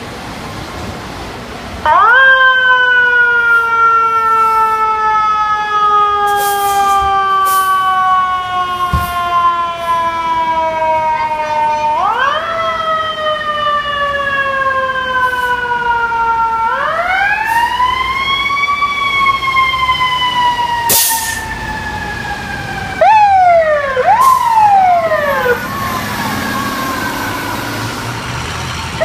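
FDNY fire truck sirens wailing as the apparatus leaves quarters. A siren winds up and then falls slowly in pitch several times, in the manner of a mechanical siren coasting down. Quicker rising-and-falling sweeps follow about 23 seconds in and again near the end, with several short sharp blasts mixed in.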